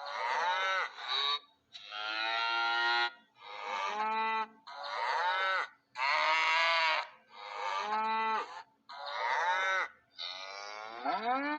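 Cattle mooing: a run of about eight separate moos, each around a second long with short pauses between, the last one rising in pitch.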